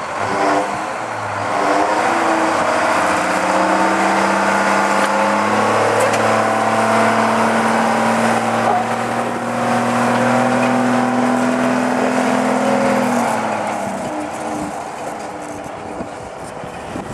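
Diesel shunting locomotive M231's engine throttling up about a second and a half in, running at steady higher revs as it passes close by, then easing back toward idle about 13 seconds in.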